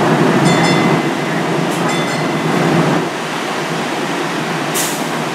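A DART light rail car standing at the platform, its onboard equipment running with a steady low hum that eases slightly about three seconds in. Two short high tones sound about a second apart near the start, and a brief hiss comes near the end.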